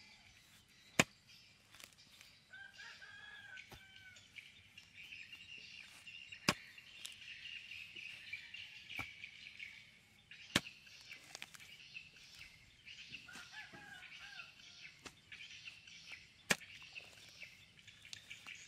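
Outdoor field ambience: a steady high insect chirring, with a bird calling twice, about three seconds in and again near the end. Four sharp knocks or clicks, spaced a few seconds apart, are the loudest sounds.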